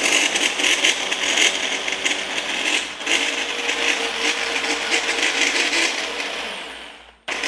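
Electric blender running at speed, blending a green herb sauce. It runs steadily, dips for a moment about three seconds in, winds down near the end, then gives one more short pulse.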